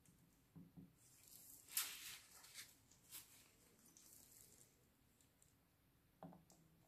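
Faint handling noises from a gloved hand working a plastic paint pipette: soft rustles and a few light clicks, the sharpest about two seconds in, and a soft knock near the end.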